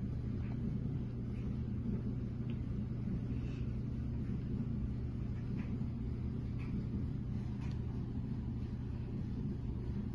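Domestic cat purring steadily: a low, continuous rumble.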